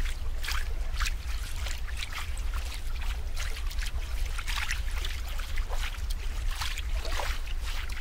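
Water trickling and splashing in irregular little spurts, over a steady low rumble.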